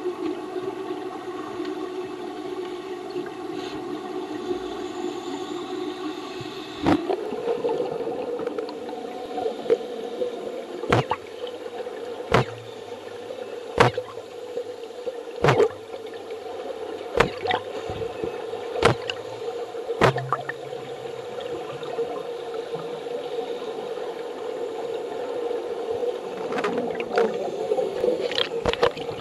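Underwater sound in a swimming pool: a steady hum with a few pitched tones that steps up in pitch about seven seconds in. Sharp clicks come roughly every second and a half from about seven to twenty seconds in, with a few more near the end.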